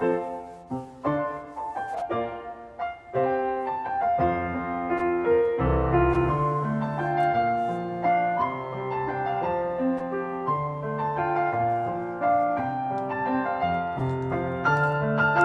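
Background piano music: sparse single notes at first, growing fuller with lower notes joining about six seconds in.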